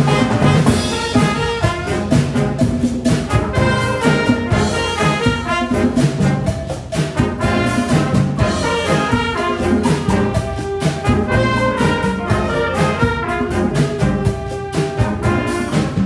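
Concert band playing live: trombones, trumpets and saxophones over flutes and clarinets, with a drum kit keeping a steady beat.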